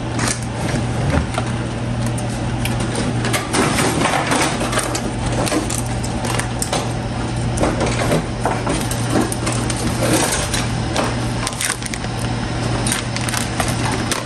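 Crinkling plastic and irregular clicks and knocks from raw salmon being unwrapped and placed into a ceramic bowl, over a steady low hum.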